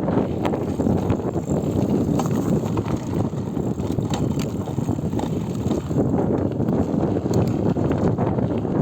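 Riding a GT Avalanche Elite mountain bike: steady wind buffeting the microphone over the rumble of the tyres, with a few light clicks and rattles from the bike.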